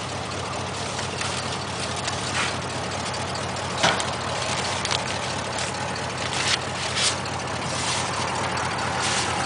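Cadillac 472 big-block V8 idling steadily, with a few short knocks and rustles as mail is pulled out of a mailbox.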